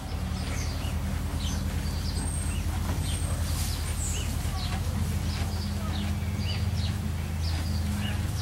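Small birds chirping over and over in short, quick calls, over a steady low hum.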